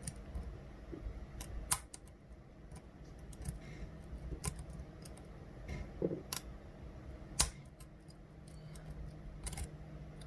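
Lock pick and tension wrench working the pins of an Assa six-pin euro cylinder: scattered sharp small metallic clicks, about half a dozen, over a faint low hum.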